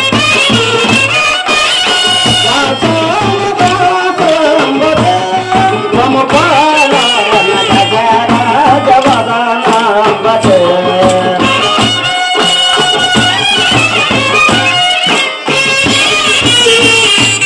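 Loud Telugu folk music for a kolatam stick dance: a wavering melodic line over a pulsing drum beat, with short sharp clicks throughout that fit the dancers' wooden kolatam sticks striking together in rhythm.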